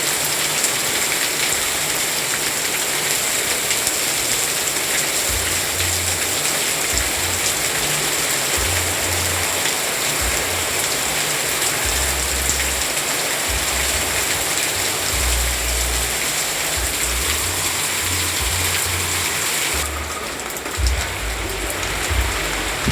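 Steady, continuous rain, an even hiss of drops on surfaces. From about five seconds in, a low rumble comes and goes underneath it.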